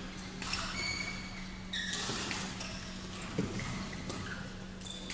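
Court shoes squeaking in short, high chirps on a badminton court floor as players move, over a steady low hum, with one dull thud about three and a half seconds in.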